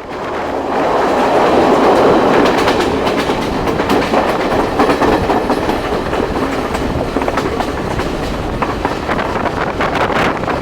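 Train running along the rails: a steady rumble with the repeated clatter of wheels over the track.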